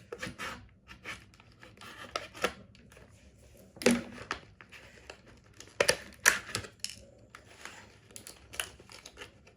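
Alarm packaging being cut and torn open by hand: irregular scraping, crinkling and tearing, with several sharp snaps, the loudest about four seconds in and a quick cluster around six seconds.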